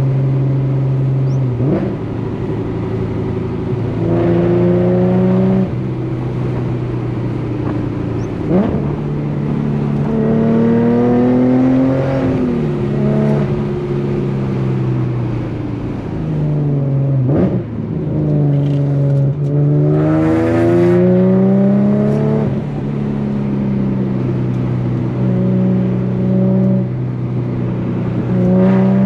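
Infiniti G37's 3.7-litre V6 through an ISR Single Exit GT exhaust, accelerating hard through the gears: the engine note climbs, drops at each shift and climbs again, several times over. The owner calls the note zero rasp.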